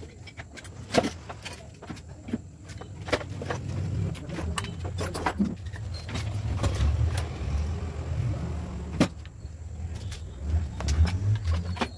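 A hard plastic toolbox and tools being handled on a concrete floor: scattered sharp knocks and clicks, the loudest about nine seconds in, over a low uneven rumble.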